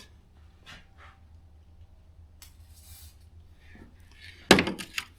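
Hands working with small hard parts and tools: a few soft clicks and rustles, then a sharp clack about four and a half seconds in followed by a couple of quicker clicks, over a faint steady low hum.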